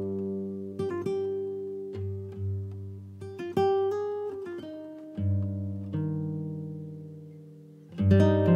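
Acoustic guitar music: plucked chords and single notes, each struck and left to ring out and fade.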